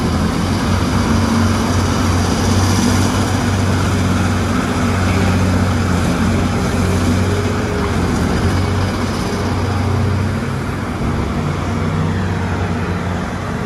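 Terex RH170 mining front shovel working, its engines giving a loud, steady, deep drone that eases slightly about ten seconds in.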